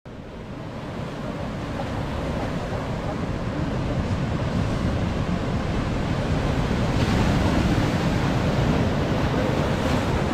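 Sea surf breaking and washing over black basalt shore rocks, with wind buffeting the microphone. It fades in over the first couple of seconds, then holds steady.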